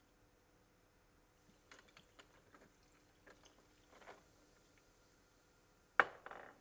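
Glassware and bar tools being handled while a cocktail is mixed: a scatter of light clicks and clinks, then a sharp clack followed by a short rattle near the end.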